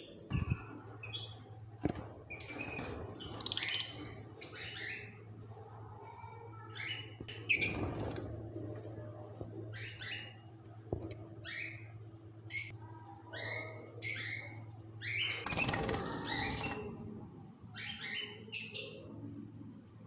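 Small caged parrots chirping and squawking: many short, sharp, high calls one after another, with two louder bursts of squawking about 7 and 15 seconds in. A steady low hum runs underneath.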